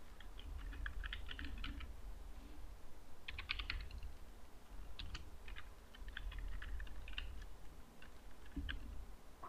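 Computer keyboard typing: runs of quick keystrokes with short pauses between them, as an email address is typed in.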